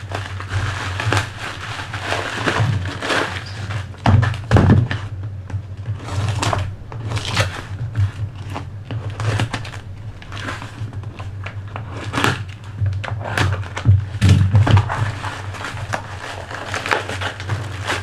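Product packaging being handled and unwrapped: irregular crinkling and rustling with scattered knocks and thumps, the loudest about four seconds in and again near the twelve and fourteen second marks, over a steady low hum.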